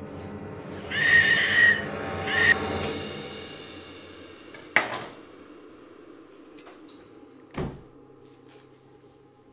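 Suspenseful film music under the handling of a glass wine bottle: two short high squeals about a second in and around two and a half seconds, a sharp click near the middle, and a dull knock later.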